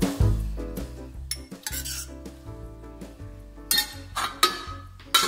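Cutlery and dishes clinking and clattering several times, with sharp clinks near the start, in the middle and a louder cluster toward the end, over background music.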